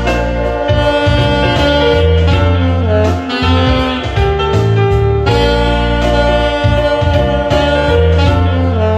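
Saxophone playing the melody of a song in held notes over an accompaniment with a steady low bass line.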